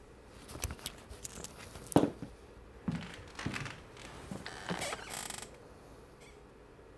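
Clothing and small objects being handled: a series of clicks, rustles and creaks, with a sharp knock about two seconds in and a short rasp of quick, even ticks, like a zipper or ratchet, about five seconds in.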